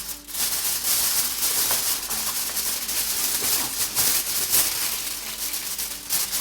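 Aluminium foil crinkling and rustling in many quick irregular crackles as it is pressed down to cover and seal a pot for baking.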